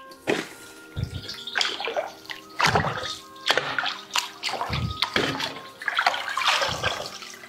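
Washed raw chicken pieces being scooped out of a bowl of water with a wire mesh strainer and tipped into a bamboo basket to drain: repeated sloshing splashes and dripping water, about half a dozen scoops.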